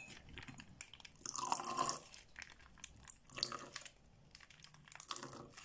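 Sour cream being squeezed out of a soft plastic pouch into a cup: wet squelches and crinkling of the packet, with a few light clicks.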